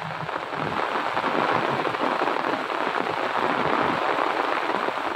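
Heavy rain pouring down on a street, a steady dense hiss that cuts off near the end.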